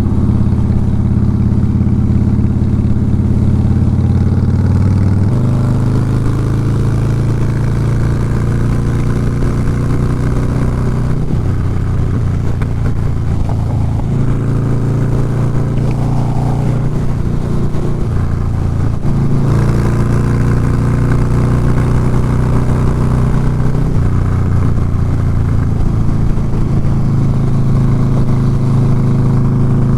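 Harley-Davidson Softail Fat Boy's V-twin engine under way, its pitch rising and dropping several times as the throttle is rolled on and off. The rider is testing a sputter that comes when he rolls on the throttle.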